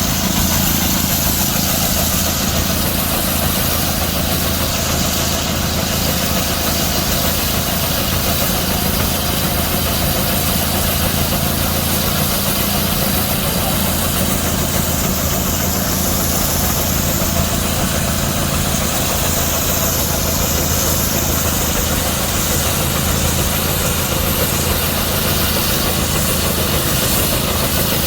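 Antique steam traction engine running steadily: a continuous low drone with a broad hiss above it, holding an even level throughout.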